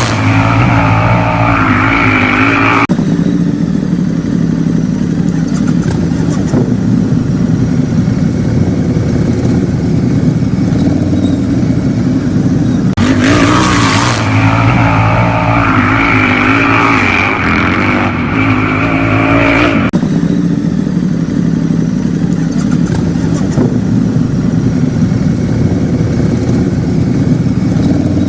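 Motor engine sound effect running steadily. A higher, wavering whine rises over it for the first few seconds and again for about seven seconds in the middle.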